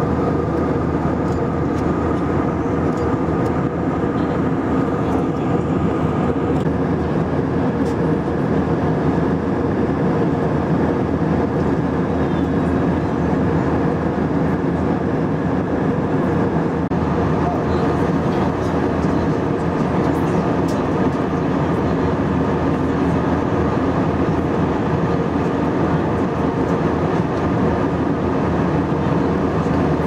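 Steady jet airliner cabin noise in flight: the even drone of the engines and rushing air, with a few steady hum tones running through it.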